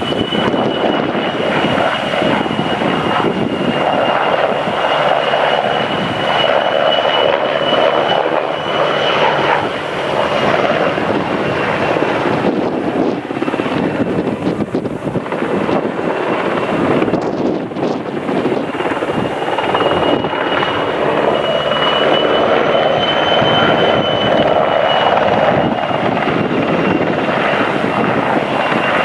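PZL W-3A Sokol helicopter flying with its twin turboshaft engines and rotors running: a steady high turbine whine over dense rotor noise, swelling and fading as it circles.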